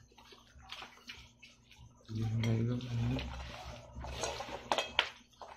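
Dinner-table sounds: a brief spoken word about two seconds in, then soft clatter of hands and spoons on plates, with a couple of sharp clinks of tableware near the end.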